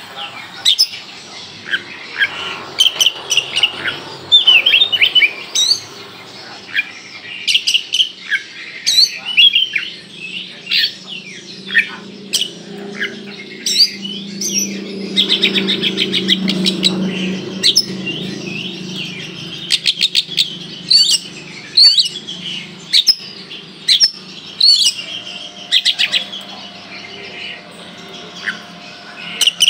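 Oriental magpie-robin (kacer) singing vigorously: a stream of loud, sharp chirps, rapid-fire trilled bursts (the 'tembakan' shots) and short whistles in quick succession. A low hum swells and fades in the background midway through.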